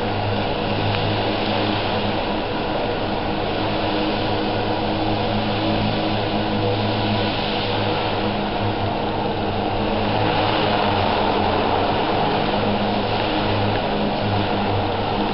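Electric RC helicopter in flight: the steady whine of its motor and spinning rotor blades, getting a little louder about ten seconds in.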